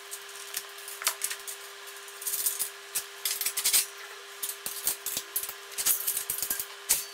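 Small metal parts clinking and rattling in irregular bursts of short clicks, as hardware is handled during gym-machine assembly, over a steady faint hum.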